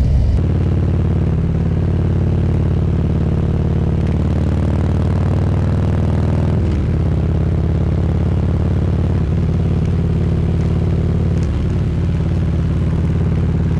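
Motorcycle engine running steadily while riding, a constant pitched hum; about halfway through the engine note dips briefly, then steadies again.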